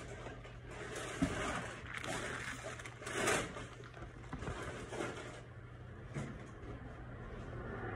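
Rustling and handling noises over a steady low hum, with a short knock about a second in and a louder rustle around three seconds.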